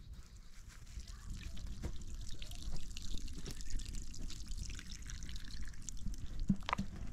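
Liquid pouring in a thin stream, with a few light knocks, the loudest near the end.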